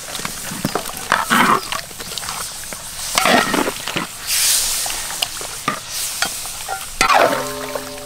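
A metal spatula stirring and scraping pork ribs and onion wedges around a large wok, with frying sizzle and sharp clinks of the spatula against the pan, in several louder bursts.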